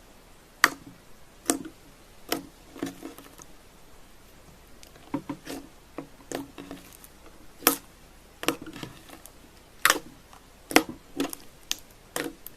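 Slime being pressed and squished by hand, giving about a dozen sharp sticky pops and clicks at an irregular pace, roughly one a second.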